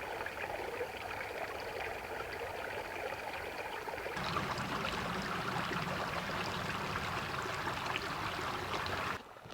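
Creek water running steadily over rocks, an even rushing with trickling. The water gets a little louder and fuller about four seconds in, then cuts off abruptly just before the end.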